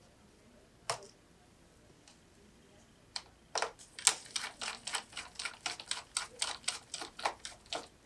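Rapid small clicks as a T6 Torx precision screwdriver turns out a tiny screw from the iMac's display data cable bracket, about four or five clicks a second for several seconds, after a single click about a second in.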